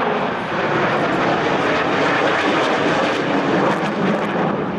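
Jet engine noise from a Panavia Tornado swing-wing jet flying overhead, a steady loud rush.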